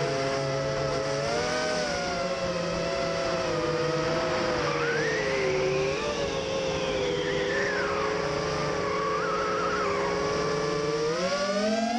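Brushless motors of a 5-inch FPV racing quadcopter (Cobra 2204 2300kv) spinning triple-blade props, a whine of several close tones that rises and falls with the throttle. About halfway through a higher tone sweeps up and back down, and the pitch climbs near the end.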